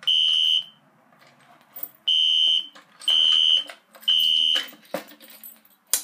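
Fire alarm horn strobes (a System Sensor Classic ceiling horn strobe, partly taped over, with a Gentex Commander 3) sounding the temporal code-3 evacuation pattern: loud high half-second beeps in threes with a pause of about a second and a half between groups. The beeping stops after the last group, and a sharp click follows near the end as the pull station is reset.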